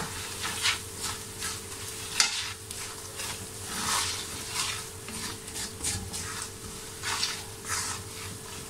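A spoon stirs and scrapes ground spices into frying onions and ginger-garlic paste in a metal kadai. There are repeated short scraping strokes, about one or two a second, over a steady sizzle of oil.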